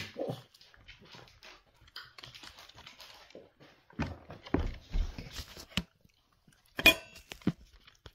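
A spaniel puppy gives a short falling whine at the start, then scattered soft taps and scuffles of movement. About seven seconds in there is one sharp, loud knock, and near the end a puppy chewing, with clicks of teeth.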